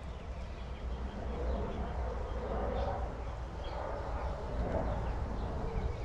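Small birdbath fountain jet splashing steadily into its water bowl over a low rumble, with faint, scattered bird chirps in the background.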